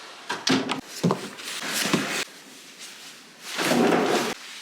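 Cutlery and dishes knocking at a breakfast table: several sharp clicks and clatters in the first two seconds, then a louder short rushing noise about three and a half seconds in.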